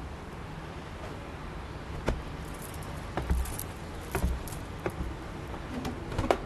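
Scattered footsteps on hard ground with light knocks and clinks from people moving about, over a low steady rumble.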